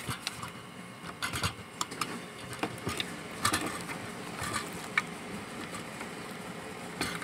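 Rustling and light plastic clicks from gloved hands handling the wires and plastic connectors on a fuel pump module, in irregular short bursts, with one sharp click about five seconds in.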